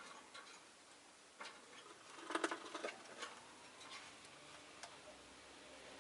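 Faint, irregular clicks and taps from a rosy-faced lovebird moving about, with a quick run of clicks about two to three seconds in.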